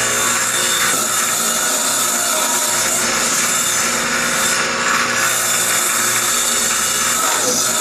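Table saw blade cutting into a segmented end-grain wooden bowl blank while a drill spins the blank against it: a steady, loud whir of wood being carved, with a motor hum that comes and goes.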